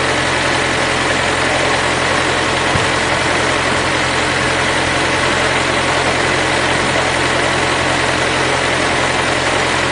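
Tractor engine running at a steady speed, a loud, even drone with a low hum, as it pulls the mounted boom sprayer along the rows.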